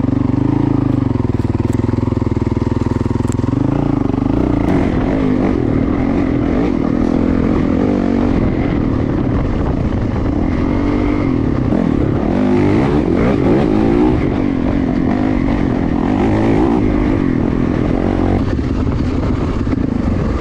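Yamaha YZ450FX's single-cylinder four-stroke engine running under constantly changing throttle as the dirt bike is ridden, its pitch rising and falling.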